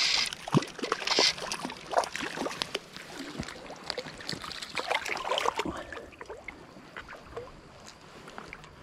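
Hooked brown trout splashing at the surface close by as it is played in on a fly rod. The splashes are loudest at the start and again about a second in, then turn into smaller irregular splashes and ticks that grow fainter.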